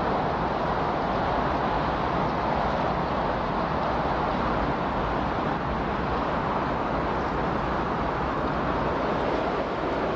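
Steady, unchanging rushing noise with no tune or rhythm: the masking noise bed of a subliminal audio track.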